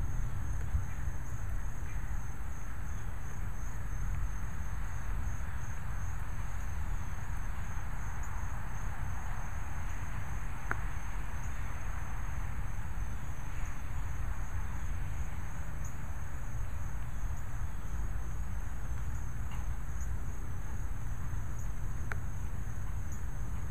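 A steady outdoor insect chorus, a high trill that pulses evenly, over a constant low rumble of background noise. Two faint clicks come through, one around the middle and one near the end.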